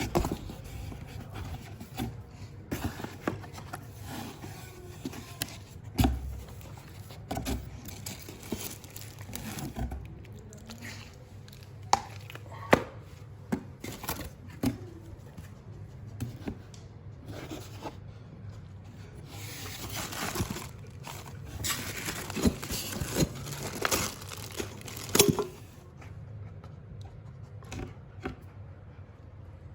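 A ceiling fan being unboxed: cardboard packaging and packing material handled and pulled apart, rustling and scraping, with scattered sharp knocks. The handling is busiest in the second half.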